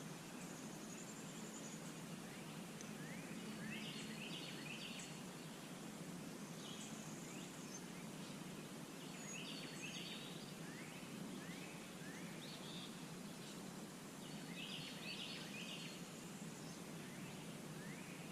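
Faint bird calls, short quick rising chirps in little clusters that recur every five or six seconds, over steady low outdoor background noise.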